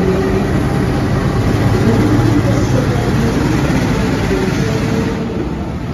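KAI CC 206 diesel-electric locomotive passing close by, its diesel engine running with a steady, heavy low rumble that eases a little near the end.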